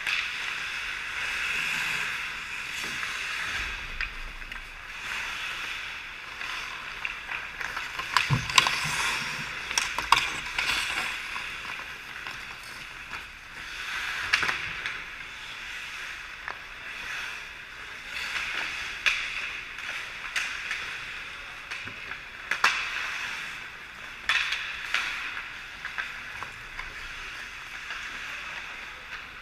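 Hockey skate blades scraping and carving across the ice, with sharp clacks of sticks and puck several times, the loudest about eight to ten seconds in.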